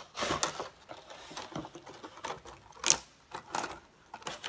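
Hard plastic model-kit parts clicking and rattling in a clear plastic packing tray as they are handled, with a louder click about three seconds in.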